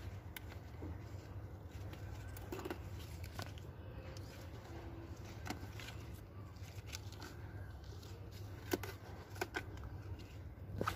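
Leaf stems of a morning glory vine snapping as leaves are plucked by hand, with light rustling of the foliage. Scattered small clicks, a few sharper snaps near the end, over a steady low hum.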